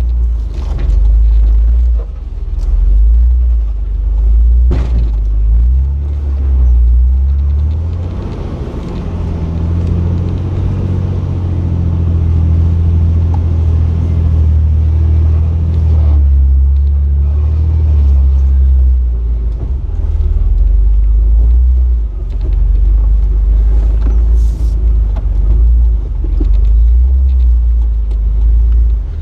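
Jeep Wrangler LJ engine rumbling at low speed while rock crawling, working harder for several seconds in the middle. There is a sharp knock about five seconds in.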